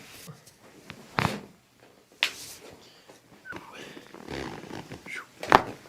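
Chiropractic adjustment: several sharp cracks and thuds as thrusts are delivered to the patient's spine and joints, the loudest near the end, with grunting sounds from the patient in between.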